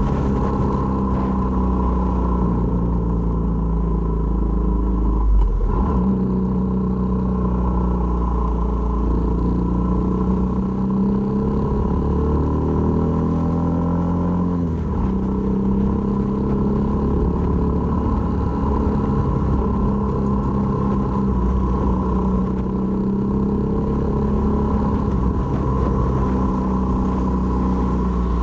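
Honda MSX125's single-cylinder four-stroke engine running under way. Its pitch rises and falls with throttle and gear changes, most plainly a climb that drops away about 15 seconds in.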